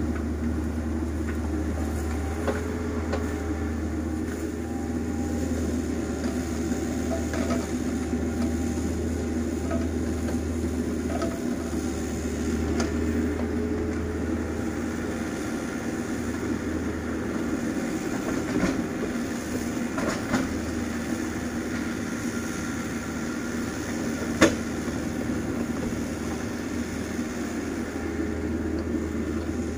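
Excavator's diesel engine running steadily while it digs, with a few knocks and clanks, the sharpest about 24 seconds in.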